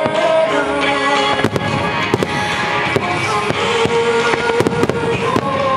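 Ultra-wide starmine fireworks display: a rapid barrage of aerial shells bursting, with many sharp bangs and crackles at an irregular pace several times a second. Music plays steadily with held notes under the bursts.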